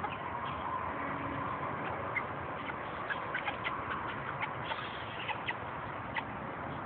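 Hens dust-bathing in loose soil, giving short high peeps and chirps, several a second around the middle, over a steady background hiss.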